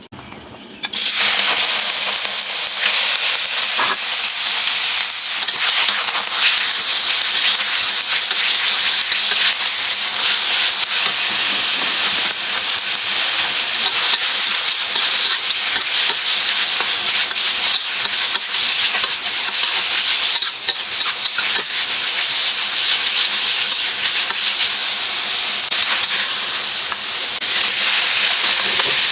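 Food frying loudly in hot oil in a pan as it is stir-fried, a steady sizzle that starts suddenly about a second in.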